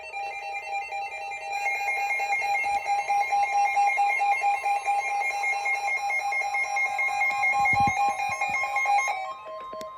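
Emergency Alert System attention signal: a loud, harsh, steady two-tone alarm that sounds for about nine seconds and stops, marking the start of a broadcast alert. A single fainter tone follows near the end.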